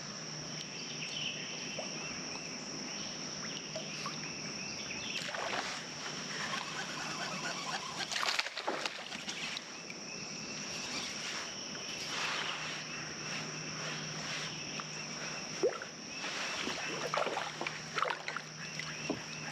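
Outdoor river ambience while fishing from a small boat: scattered splashes and short clicks and knocks of handling, over a steady low hum and a steady high-pitched whine.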